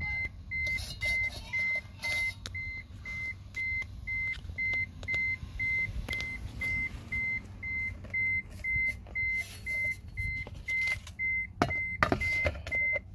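A Proton car's electronic warning chime beeping steadily, a single high tone about two and a half times a second. Near the end a few clicks and knocks come from the steering-wheel horn pad being handled.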